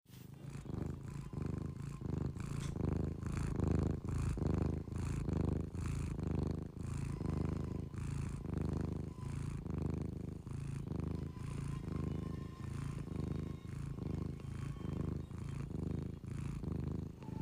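A sleeping cat purring: a steady low rumble pulsing in an even, repeating rhythm.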